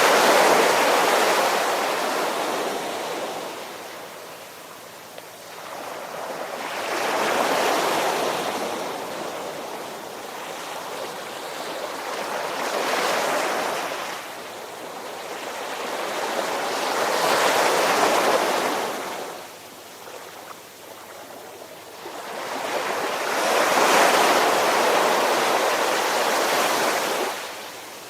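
Ocean surf: waves wash in and recede in slow surges, about five of them, each swelling over a couple of seconds and then fading away.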